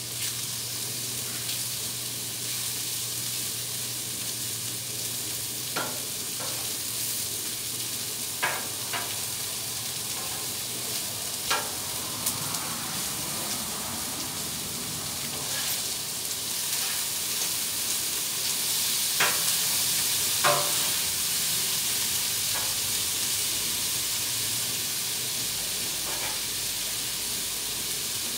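Chicken, bacon and vegetables sizzling on a Blackstone flat-top gas griddle, a steady hiss that grows a little louder in the second half. A metal spatula clacks and scrapes against the steel top now and then.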